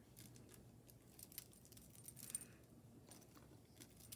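Faint clinks and light jingling of metal dangle earrings, with bead and heart charms, being handled and set down on a table; a few soft clicks scattered through.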